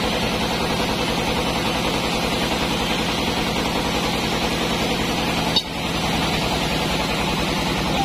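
Sawmill machinery running steadily: the band saw and its log carriage drive making a continuous loud mechanical drone with a low hum. A single sharp click about five and a half seconds in, with a brief dip in level right after it.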